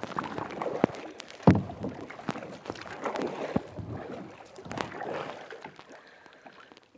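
Paddling and water sloshing around a Sun Dolphin kayak as it glides in toward shore, with a few sharp knocks, the loudest about a second and a half in; the sound dies down near the end as the boat slows.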